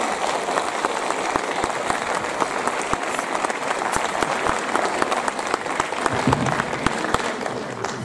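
Audience applauding: dense, steady clapping that starts to tail off near the end.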